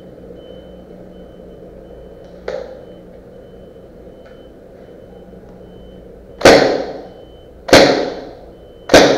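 Airsoft gun fired three times, about a second and a quarter apart, each a sharp loud crack with a short decaying tail. A fainter knock comes about two and a half seconds in.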